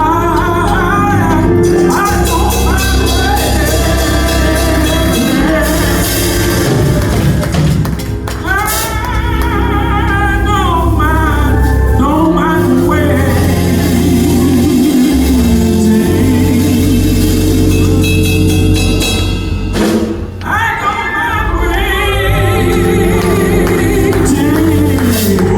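Live gospel music: a singing voice over band accompaniment with a steady bass, with brief drops in the music about eight and twenty seconds in.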